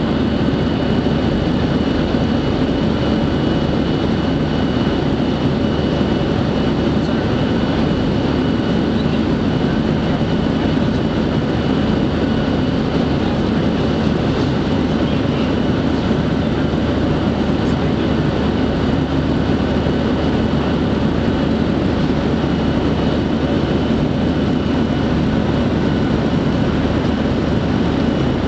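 Steady in-flight airliner cabin noise: the constant rush of engines and airflow over the fuselage, with a faint steady high whine on top.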